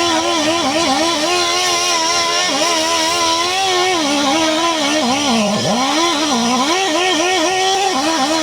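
An engine revving, its pitch constantly rising and falling, with a deep drop and climb back about five and a half seconds in.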